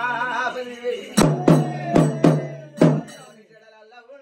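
A man singing a devotional folk chant, then five loud, sharp drum beats a little over a second in, over a low steady hum, dying away after about three seconds.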